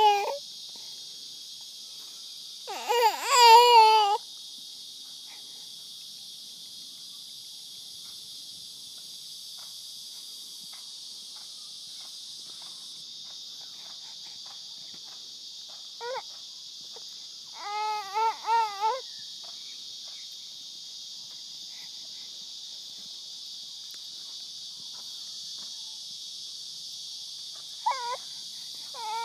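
Steady high-pitched insect chorus, with a few short wavering calls that rise and fall in pitch: the loudest about three seconds in, more past the middle and near the end.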